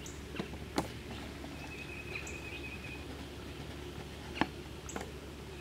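Quiet outdoor background: a few short, high bird chirps and a steady high buzzing tone for about a second and a half near the middle, with a few faint clicks over a low steady hum.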